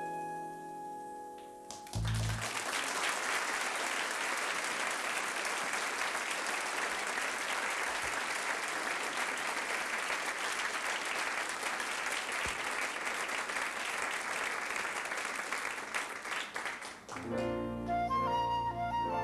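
A song's last held note ends with a low final chord about two seconds in, and the audience bursts into applause that lasts about fifteen seconds. Near the end the applause stops and a flute begins a melody over low accompaniment.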